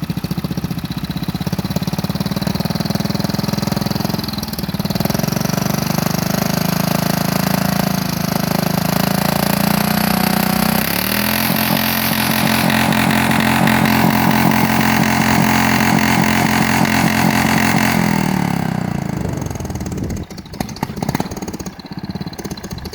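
Engine being deliberately over-revved at full throttle with no load, in an attempt to blow it. The revs climb, dip briefly about four seconds in, then jump about eleven seconds in to a held top speed that sounds capped by a rev limiter, before falling back toward idle near the end.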